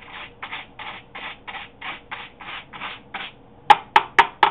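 A small brush scrubbing along the pleats of a Hoover WindTunnel vacuum filter in even strokes, about three a second. Near the end come four sharp, louder taps in quick succession.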